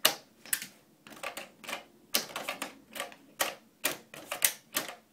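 Labradoodle puppy pawing at a clear plastic dog-door flap: its claws tap the flap, which clacks in its frame in a rapid, irregular run of clicks, several a second.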